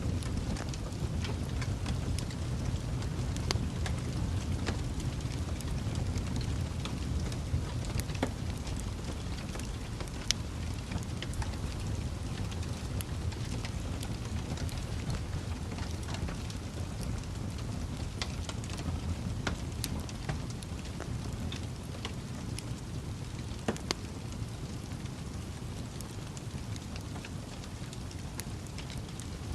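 Wood fire burning in a fireplace: a steady low roar of flames with frequent irregular crackles and pops from the logs.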